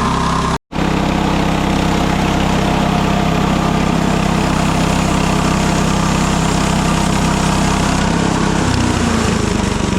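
Small gasoline engine of a Mechmaxx SM-22 band sawmill running steadily. The sound drops out for a split second just under a second in, and the engine's pitch shifts lower about eight and a half seconds in.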